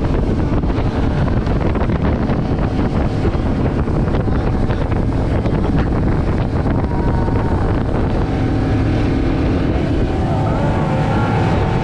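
Inflatable motorboat running at speed, its engine a steady low drone under heavy wind buffeting on the microphone and the rush of spray off the hull.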